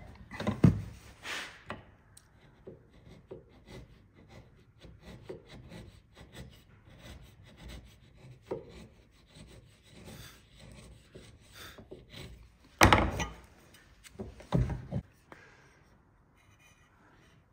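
Bevel-edged chisel paring thin slivers off a timber halving joint by hand: a run of soft scraping strokes, trimming a high spot so the joint sits flush. There are sharp wooden knocks about a second in, and two louder knocks a little before the end.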